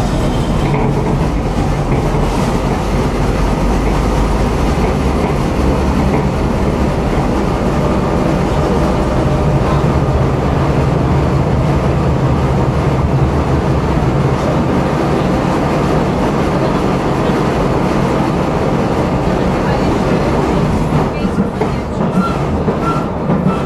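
Tram running along its track: a steady low rumble of wheels on rails, easing slightly near the end.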